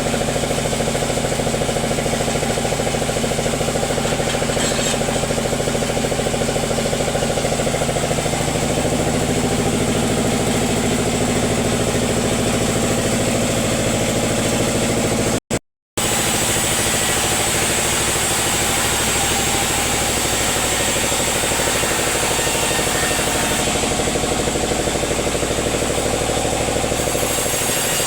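Sawmill machinery's engine running steadily, with a brief dropout a little past halfway.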